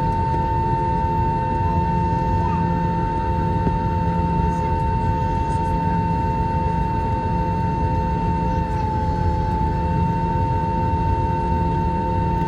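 An Airbus A321-231's IAE V2500 turbofan running at taxi power, with only one engine started: a steady whine over a low rumble. The whine dips slightly in pitch about nine seconds in.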